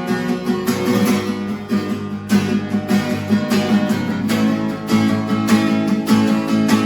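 Solo acoustic guitar strumming chords, with no singing.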